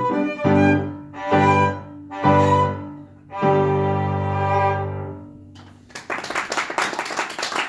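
Violin with piano accompaniment playing the closing bars of a piece: three short accented chords, then a long held final chord that fades away. About six seconds in, applause begins.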